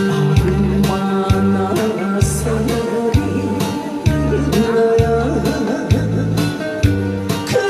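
Amplified live music with a strong beat about once a second, bass and instrumental backing, and a voice singing over it.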